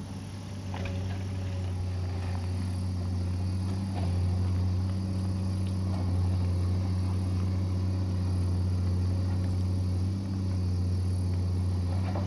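Excavator's diesel engine running steadily under work, with a few faint knocks of metal and rock.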